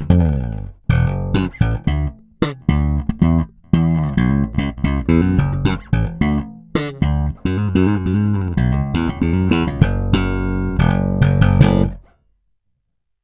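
Unaccompanied electric bass (ESP AMAZE-AS with jazz-bass pickups) recorded direct through a DI box, playing a run of plucked notes with some slides. The playing stops abruptly near the end.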